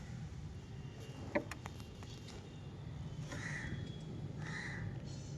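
A crow cawing twice, two short harsh calls about a second apart, beginning a little past three seconds in. A single sharp click comes about a second and a half in, over a low steady hum.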